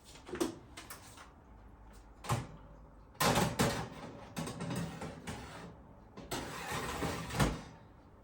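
Oven door and metal baking tray being handled: knocks, then scraping and rattling as the tray slides in, and a heavy thump near the end, like the oven door shutting.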